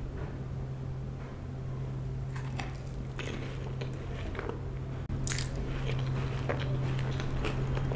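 Close-up eating sounds: a person biting and chewing food, with crisp crunching bites that start about two seconds in, the loudest just after five seconds. A steady low hum runs underneath.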